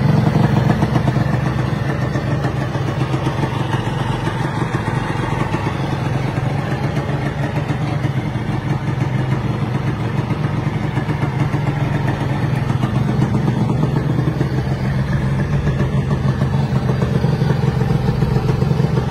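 Yamaha TZR125 two-stroke single-cylinder engine, fitted with an aftermarket racing exhaust, running steadily at idle.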